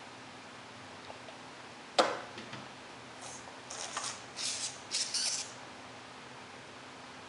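A sharp plastic click about two seconds in, then four or five short scratchy rubbing sounds: a child handling a plastic makeup palette and rubbing an applicator in its pans.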